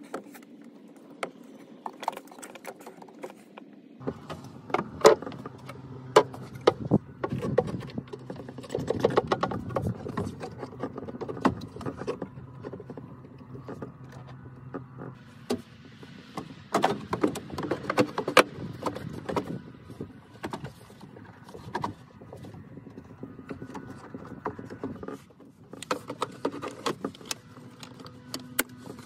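Scattered clicks, clinks and knocks of metal and plastic parts being handled in a pickup's engine bay as a replacement alternator is fitted and its wiring connected, with the plastic air intake housing being set back in place near the end.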